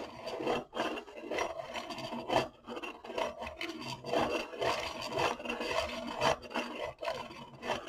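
Dahle 133 hand-crank pencil sharpener's cutter shaving a colored pencil as the crank is turned: a continuous rasping grind that pulses about twice a second.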